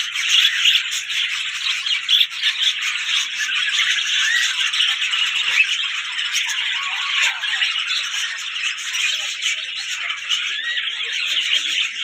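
A caged flock of budgerigars chattering: many small high chirps overlapping without a break.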